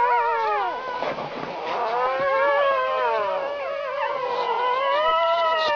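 Several puppies howling together: long, overlapping howls that waver and rise and fall in pitch, one dying away about a second in as others swell up and arch over.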